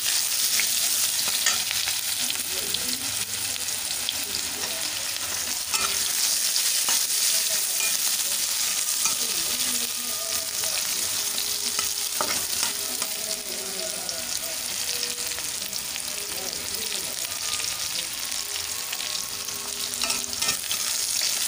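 Freshly added chopped onions sizzling in hot ghee in a metal kadai, with a flat metal spatula scraping and stirring against the pan now and then.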